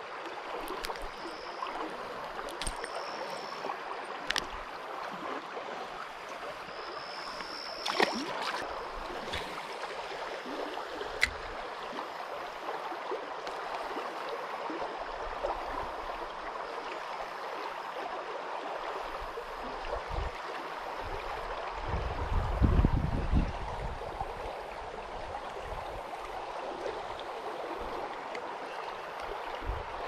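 Creek water running steadily, with a few sharp handling clicks in the first half and a brief low rumble about three quarters of the way in.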